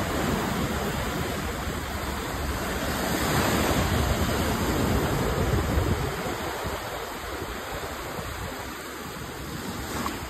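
Ocean surf: small waves breaking and foam washing up over the sand at the water's edge. The wash swells louder a few seconds in and eases off again.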